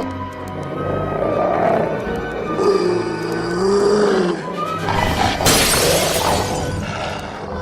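Cartoon soundtrack music with dogs growling and snarling over it, and a loud burst of noise like a crash about five and a half seconds in.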